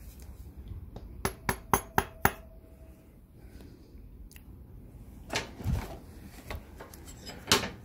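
Five quick, sharp metal taps with a faint ring as a new Accent electronic ignition rotor, a tight fit, is tapped onto its shaft on a Suzuki GT750 engine. A duller knock and one more click follow a few seconds later.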